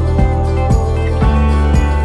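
Background music with a steady beat, about two beats a second, under a sustained melody.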